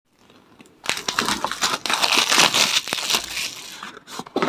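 Smartwatch packaging being handled and crinkled: a dense crackling rustle that starts about a second in, eases off near the end, then comes back in one short burst.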